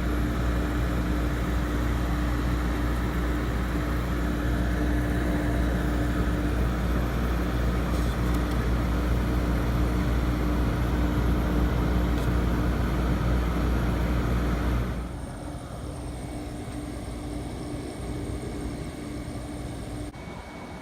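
Amana Cool Zone window air conditioner running on low cool: a steady, loud mechanical hum with a low drone and a steady tone. About three-quarters of the way in the louder hum cuts off suddenly, leaving a much quieter steady running sound.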